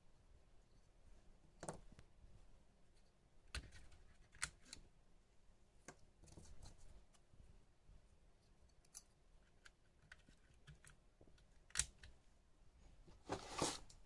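Faint scattered clicks and handling noises from a laptop SO-DIMM memory module being handled and fitted into a motherboard's RAM slot, with one sharper click late on and a short rustle near the end.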